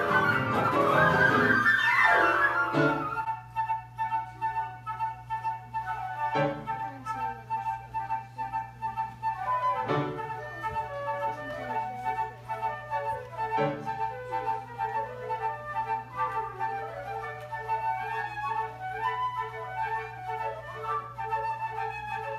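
Recorder ensemble with piano playing: for the first three seconds or so a loud chaotic flurry of fast, jumbled notes, the deliberate free-for-all the score calls for. It then drops into a quieter passage of fast repeated high notes and a winding melody over a steady held low note, with a few sharp chords.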